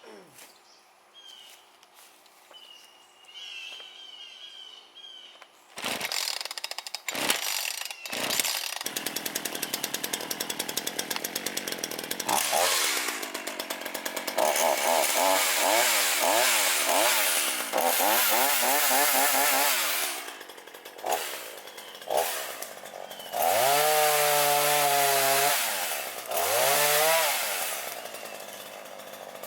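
Gasoline chainsaw being pull-started: a few pulls about six to eight seconds in, then the engine catches and is revved up and down over and over, held at high revs for a few seconds near the end, then drops back to a lower speed.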